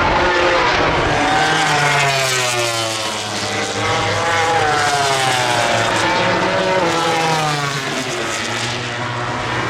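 MotoGP race motorcycles' four-cylinder engines at racing revs, the pitch rising and falling several times as the bikes accelerate and shift.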